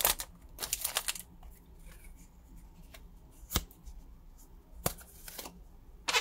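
Foil booster pack wrapper crinkling as the trading cards are slid out. This is followed by quieter handling of the cards, with a few separate sharp clicks of card against card.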